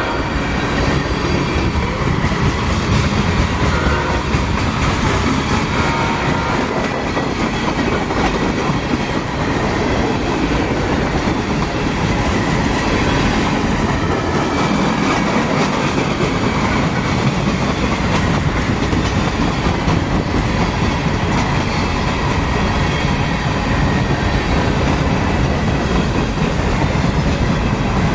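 CSX manifest freight train M601 rolling past close by: a steady, loud rumble and clatter of freight cars over the rails, with some wheel squeal.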